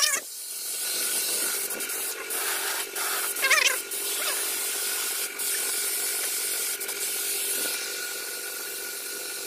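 Compressed-air paint spray gun hissing steadily as it sprays paint onto a steel grill, dropping out for a moment a few times as the trigger is eased. A steady hum runs underneath, and a short warbling chirp sounds about three and a half seconds in.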